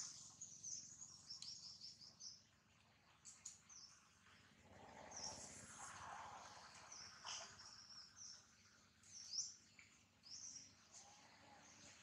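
Faint, high-pitched bird chirps, short and repeated every second or so, over a low background hiss.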